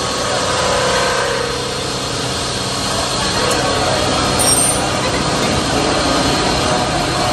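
Steady mechanical noise from workshop machinery: a low hum under a wide, even hiss.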